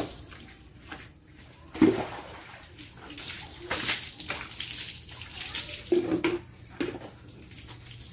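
Water splashing onto a motorcycle and the wet concrete under it as it is washed, in several irregular splashes, the loudest about two seconds in.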